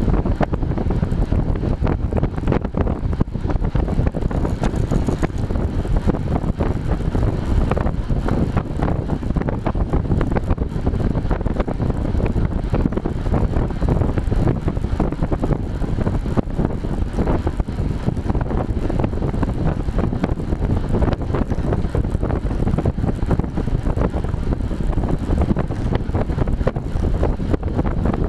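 Steady heavy wind rush buffeting a bike-mounted action camera's microphone as the bicycle travels at about 30 mph.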